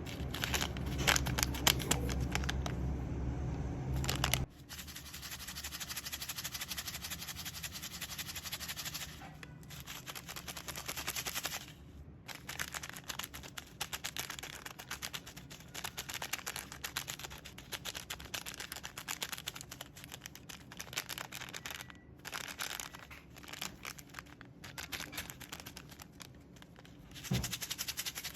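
Close-up crackling and crunching of 'magic pops', a dense stream of tiny pops that stops and starts with short gaps. It is loudest in the first few seconds.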